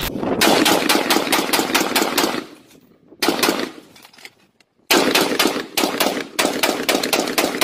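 AR-15-style rifle firing in quick strings of shots. A run of about two seconds comes first, a short string about three seconds in, then another fast run from about five seconds in.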